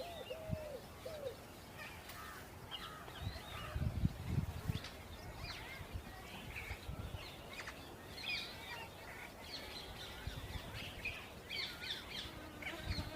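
Wild birds chirping and twittering, many short high calls overlapping, with a few arched lower calls in the first second and a half. Low rumbles come and go, loudest about four seconds in.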